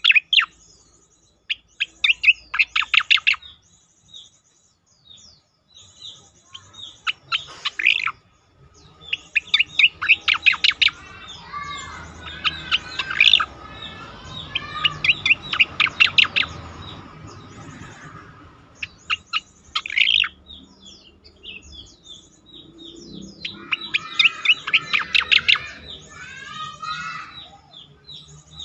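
Striated grassbird song: bursts of rapid, sharp repeated notes mixed with warbling phrases, about eight bursts separated by short pauses.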